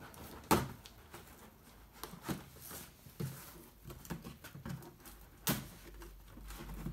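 Scissors cutting and scraping through packing tape on a cardboard box, with scattered scratching and a few sharp knocks against the cardboard, the strongest about half a second in and about five and a half seconds in.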